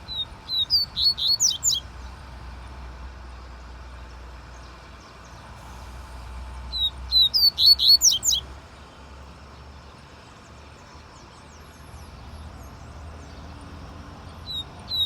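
A double-collared seedeater (coleiro) singing in short bursts of quick, sharp whistled notes, each phrase under two seconds, repeated about every seven seconds: twice, with a third starting at the very end. A faint low rumble runs underneath.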